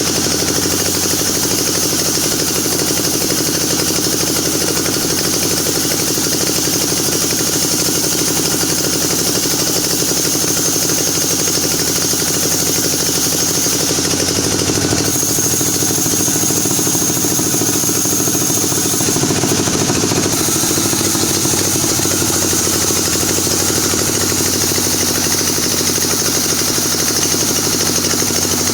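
Engine-driven saw running steadily as it cuts through wood, its sound shifting about halfway through to a higher steady whine.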